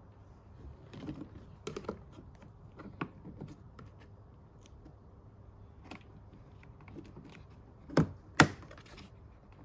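Light clicks and taps of hands on the plastic trim and battery covers in a car's engine bay, scattered, with two sharper knocks in quick succession near the end.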